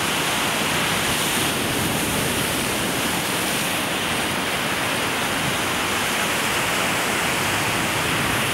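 Lake waves washing in through floating ice chunks and slush at the shoreline: a steady, even rush of water with no distinct breaks.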